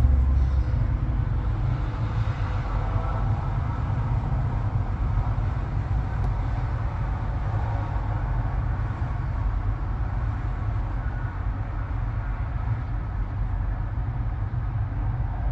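Steady low rumble of an idling diesel truck engine, even and unchanging throughout.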